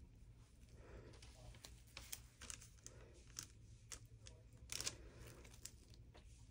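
Near silence, with faint scattered taps and rustles of a gloved hand handling a silicone cup and mold on a covered work table; a slightly louder cluster of taps comes a little under five seconds in.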